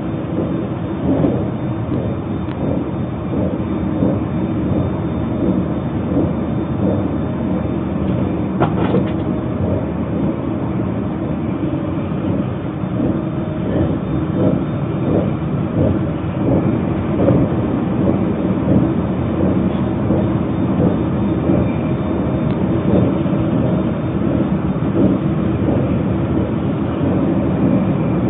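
Running noise inside a moving Narita Express train car: a steady rumble of wheels on rail with a light, irregular clatter throughout, and a single sharper click about nine seconds in.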